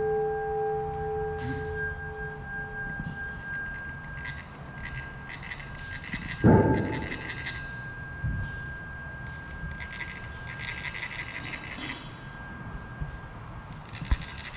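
A struck metal bell or bowl rings out and fades over the first few seconds. A single thump comes about halfway through. After that there are patches of fine metallic rasping, typical of Tibetan chak-pur sand funnels being rubbed with a metal rod to trickle coloured sand onto a mandala.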